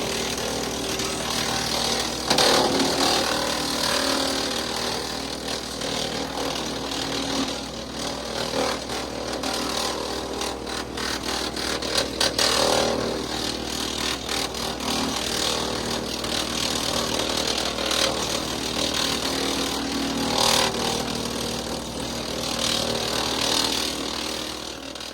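WoodMaxx MX-8800 PTO wood chipper running behind a Kubota L3901 tractor, the tractor's three-cylinder diesel holding a steady pace while the chipper's noise swells several times as wood goes through, most clearly about two seconds in and around twelve seconds in.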